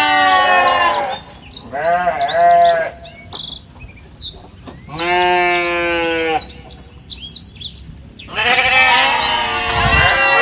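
Livestock bleating: about four long, wavering calls, the last one thicker as if more than one animal calls at once, with small birds chirping high in the background.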